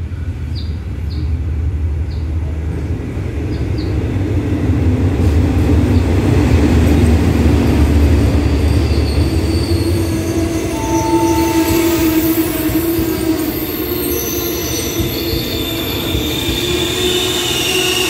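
Hitachi diesel locomotive 4518 rumbling past at low speed, loudest about five to nine seconds in. Its passenger coaches then roll by, with steady high-pitched metallic squealing as the train brakes to stop at the platform.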